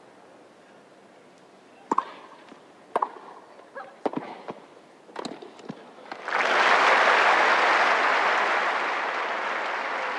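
Tennis ball being struck in a rally: two sharp racket hits about a second apart, then several lighter hits and bounces. About six seconds in, the crowd breaks into applause that goes on, slowly fading, and is the loudest sound.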